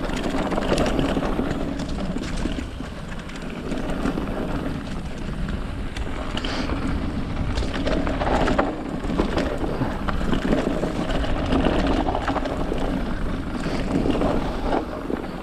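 Mountain bike riding fast downhill on a dirt and leaf-covered trail: steady tyre roll with frequent clatters and knocks from the bike and loose stones, and wind on the microphone.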